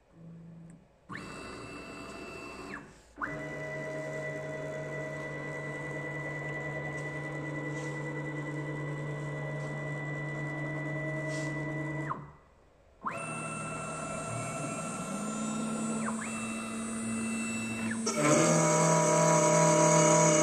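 CNC router's stepper motors whining through a series of traverse moves, each steady tone starting and stopping sharply with short pauses between. About fifteen seconds in, a rising hum settles into a steady tone as the spindle spins up. Near the end the sound turns louder and harsher as the 4 mm two-flute end mill reaches the steel brake disc.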